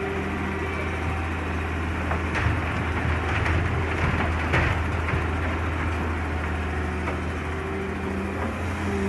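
Hitachi Zaxis hydraulic excavator's diesel engine running steadily, with a cluster of sharp knocks and clanks from about a quarter to halfway through.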